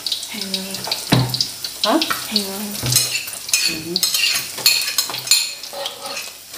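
Salted fish frying in oil in a steel wok, sizzling. A metal spatula scrapes and clinks against the wok a few seconds in as the pieces are turned.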